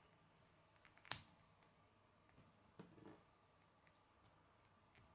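K'nex plastic pieces being snapped together by hand: one sharp snap about a second in, then a few faint clicks and rustles as the pieces are handled.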